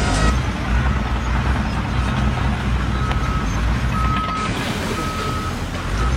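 Vehicle reversing alarm sounding a steady, evenly spaced beep about once a second over a low engine rumble.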